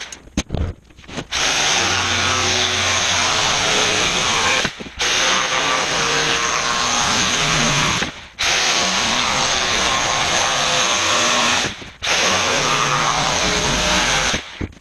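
Jigsaw cutting through plywood along a marked line. It runs in four stretches of about three seconds each, with short pauses between them. A few handling clicks come just before the first cut starts.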